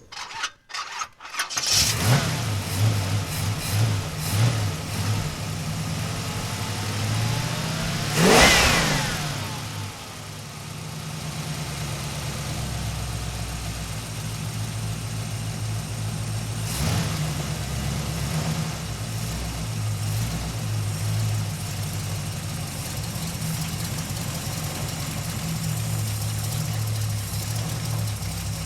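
Muscle car engine cranked and started, running unevenly for a few seconds before settling into an idle. About eight seconds in it is revved once hard, the pitch rising and falling back. There is a smaller blip of the throttle near seventeen seconds, then steady idling.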